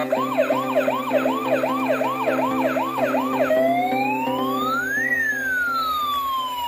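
Electronic siren of a battery-powered toy police motorcycle: a fast whooping siren of about two and a half rising chirps a second, switching about halfway through to a slow wail that rises and then falls, over a steady hum.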